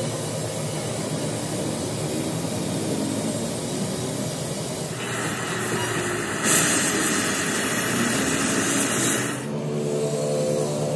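A motor or engine running steadily, joined about five seconds in by a loud hiss that lasts about four seconds and cuts off suddenly.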